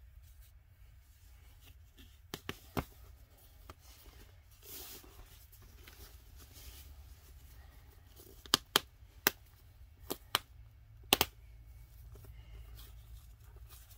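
A diaper being put on and fastened: fabric and plastic rustling, with a string of sharp clicks in two clusters, three about two seconds in and six more in the last third.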